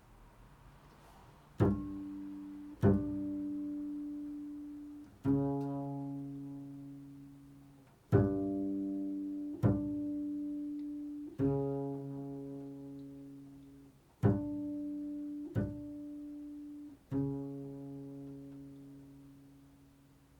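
Slow, improvised plucked notes on a low-pitched string instrument: nine single notes, each struck sharply and left to ring and fade, several stopped short before the next.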